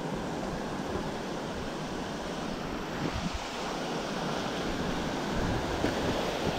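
Shallow surf washing up over the sand as small waves break, a steady rush of water.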